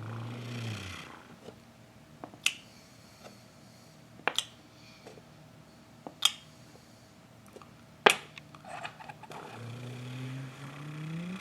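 Toy blocks being set down with sharp clacks, five or six times, the loudest about eight seconds in. A low humming vehicle noise made by mouth fades out in the first second and rises again near the end.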